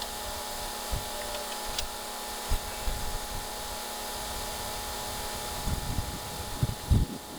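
Compact excavator's diesel engine running steadily, with a few short low thumps.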